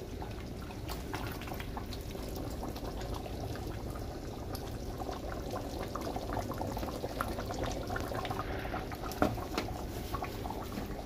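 A pot of curry chicken sauce simmering: a steady bubbling with many small pops and crackles, and one sharper click about nine seconds in.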